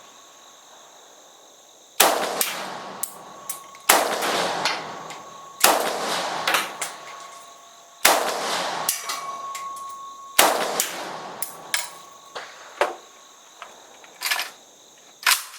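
Bulgarian AK-74 rifle in 5.45×39 mm fired in deliberate single shots: five loud shots about two seconds apart, each followed by a long rolling echo. Fainter sharp cracks follow near the end.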